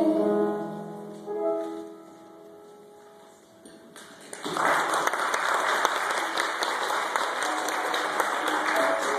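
A children's choir with accompaniment ends a song on a held final chord, which fades out. About four and a half seconds in, the congregation starts clapping and keeps up steady applause.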